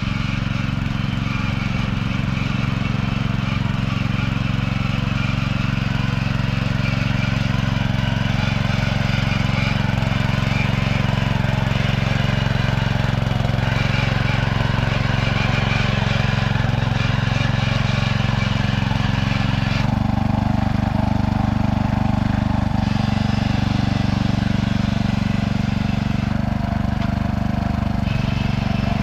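STIHL MH700 petrol rotary tiller running steadily as its tines dig into the soil, the engine note shifting a few times in the last third as the load changes.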